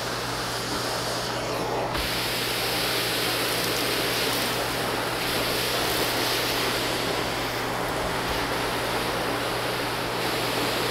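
Vacuum cleaner running with a Wessel-Werk RD285 floor nozzle, sucking up pet hair, flour, cereal and cat litter: a steady motor hum under a loud rush of air. The rush turns brighter about two seconds in.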